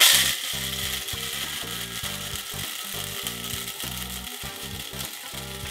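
Electric blade coffee grinder, used as a spice grinder, switched on and running steadily as it grinds whole black peppercorns.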